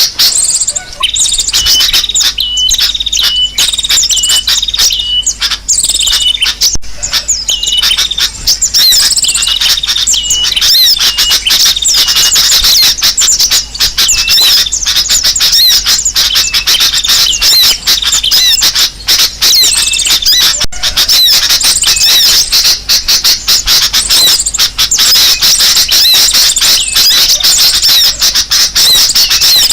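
A dense chorus of many small birds chirping and twittering at once, loud and without a break, with one short call repeating over and over during the first third. It is a bird-lure recording of noisy, agitated birds, played to draw wild birds close.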